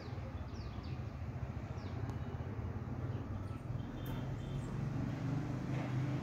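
Steady low outdoor rumble, with a few short, falling bird chirps in the first two seconds.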